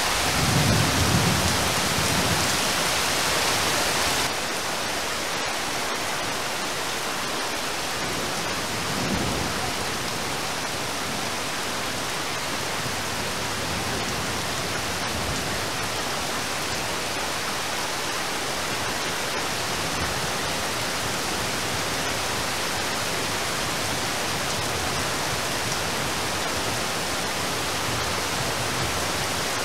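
Steady rain falling, a dense even hiss. There is a low rumble near the start, and the level drops slightly about four seconds in.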